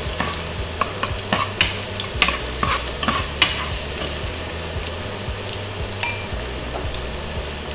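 Minced garlic sizzling in hot oil in a nonstick pot while a metal spoon stirs it, the spoon clicking and scraping against the pot for the first few seconds, then a steady sizzle once the spoon is left resting. A range hood fan hums underneath.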